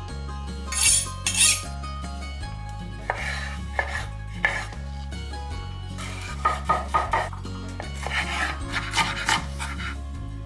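A chef's knife chopping cucumber and feta on a bamboo cutting board, in quick clusters of sharp strikes, over background music with a steady beat. Two loud sudden sounds come about a second in, before the chopping starts.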